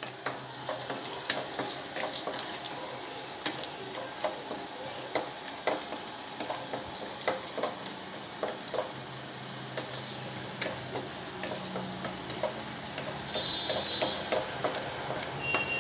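Chopped cashews, almonds and raisins frying in ghee in a pan, a steady soft sizzle, while a wooden spatula stirs them and knocks against the pan in short, irregular clicks.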